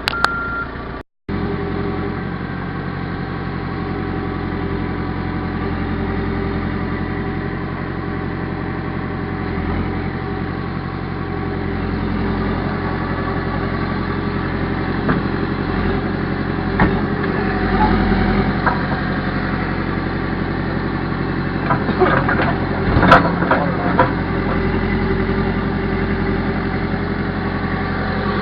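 Backhoe loader's diesel engine running steadily at work, with a cluster of sharp clanks and knocks about three quarters of the way through. The sound drops out briefly about a second in.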